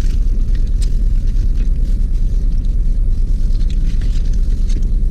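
Steady low rumble of a car's idling engine heard from inside the cabin, with a few faint crinkles from a plastic food glove handling the chicken.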